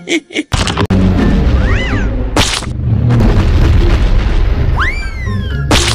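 Cartoon soundtrack: a sudden loud boom about half a second in, then a heavy low rumble under music. Two whistle-like glides rise and fall over it, with short sharp hits after each.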